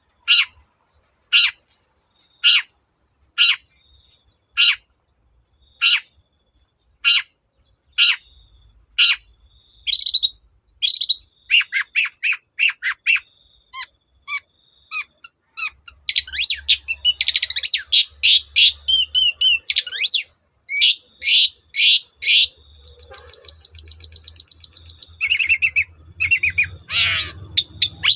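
Long-tailed shrike singing: a string of loud, sharp, downward-sweeping calls repeated about once a second, breaking after about ten seconds into a fast, varied run of chattering notes, rapid trills and warbled phrases.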